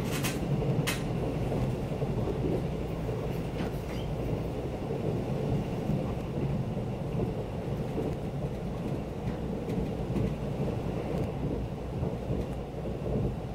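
Steady low rumble of a KTX high-speed train running at speed, heard from inside the passenger carriage, with a few short clicks in the first second.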